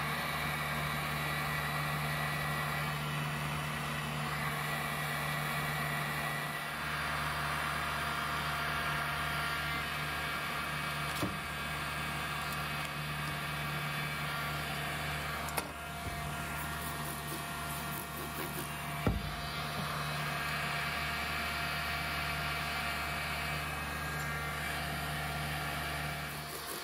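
Electric heat gun running steadily, its fan motor humming under a rush of hot air, used to heat water-soaked veneer so it softens and can be lifted. Three brief sharp clicks sound in the middle stretch.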